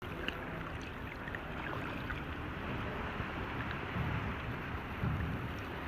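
Small waves lapping and sloshing against a camera held at the sea surface, an uneven low washing with scattered small splashy ticks.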